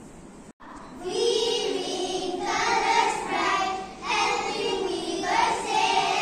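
A group of young children singing together in phrases of a second or two, starting about a second in after a brief dropout in the sound.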